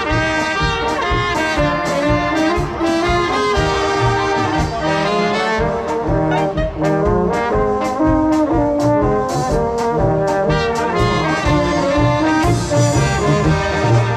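Moravian brass band (dechovka) playing live: a brass melody over low bass notes, with a steady rhythmic beat.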